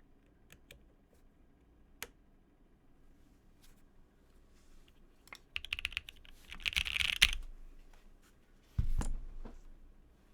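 Keyboard typing: scattered single keystrokes, then a fast flurry of keys about six to seven seconds in, the loudest part, and another short run near the end.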